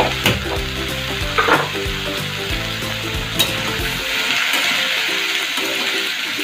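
Mixed chopped vegetables sizzling in hot mustard oil in a kadai, with a spatula scraping and knocking against the pan a few times as they are stirred.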